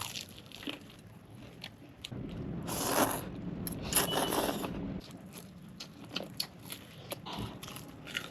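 Crunchy bites and chewing of food, with two louder crunching bites around three and four seconds in. The crunching cuts off abruptly about five seconds in, leaving quieter scattered clicks and mouth sounds.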